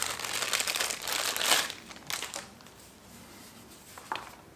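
Clear plastic packaging bag crinkling as a camera neck strap is unwrapped from it, loudest for the first two seconds and then quieter handling, with one short click near the end.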